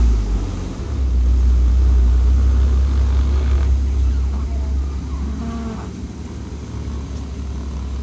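Porsche Cayman GT4's flat-six engine running with a deep, steady rumble. It grows louder about a second in and settles back down after about five seconds.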